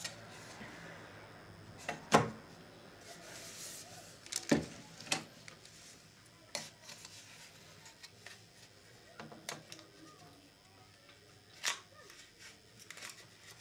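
Scattered plastic clicks and knocks from a small portable TV and its mount being handled, fitted together and set down on a table. There is rustling during the first few seconds, and the loudest knock comes about two seconds in.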